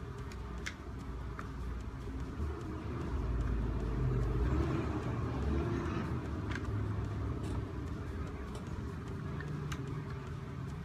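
Light clicks and rattles of a laptop cooler's plastic housing being handled, over a low rumble that swells louder a few seconds in and then eases off.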